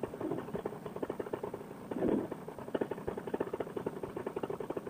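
Fresh Breeze Monster paramotor's two-stroke engine idling: a rapid, even ticking of firing pulses, running with its freshly repaired exhaust silencer.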